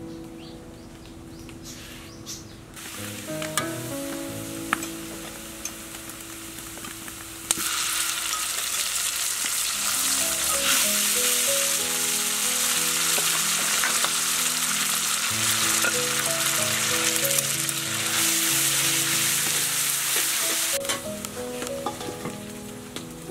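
Sliced garlic and sauces sizzling in hot oil in a wok, stirred with a metal spatula; the sizzle turns loud about a third of the way in and eases off near the end. Soft background music plays throughout.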